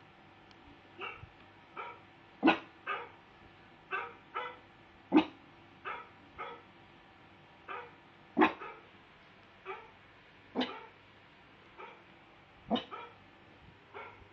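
A dog barking: a string of short single barks at uneven intervals, about one a second, some louder than others.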